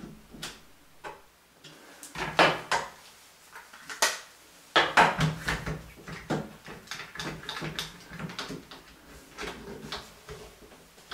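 Irregular knocks, clunks and clicks of hard workshop objects being handled, metal and wood. The loudest come about two seconds in and again around four to five seconds in, with lighter clicking after that.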